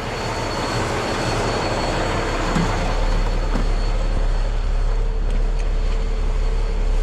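Diesel semi truck engine pulling away, a steady drone with a thin high whine, growing louder over the first few seconds.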